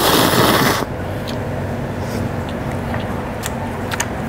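A loud slurp of hot instant noodles and broth through the lips, ending about a second in. It is followed by quiet chewing with a few faint small clicks over a steady low background hum.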